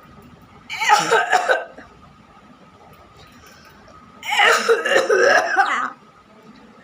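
A person making put-on coughing sounds for a sound-imitation challenge, in two fits of several coughs each, the second fit longer.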